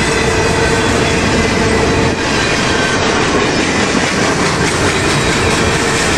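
Freight train of empty potash covered hopper cars passing close at speed: a loud, steady rumble and clatter of steel wheels on the rails, with a faint steady whine over it.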